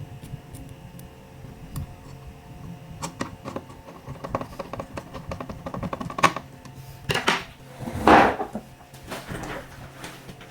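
Light clicks and taps of small laptop parts being handled and fitted, with two louder scraping rustles about seven and eight seconds in.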